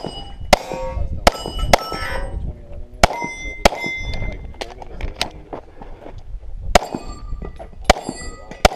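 Semi-automatic pistol shots in an uneven string, about ten in all. Many are followed by the clanging ring of struck steel plate targets.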